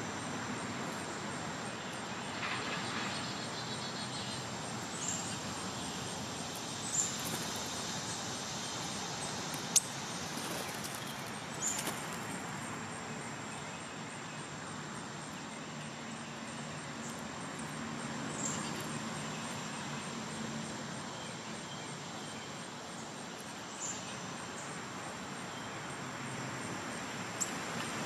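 Outdoor ambience: a steady high-pitched insect drone over a distant traffic hum, with a few short, high bird chips scattered through and one sharp click about ten seconds in.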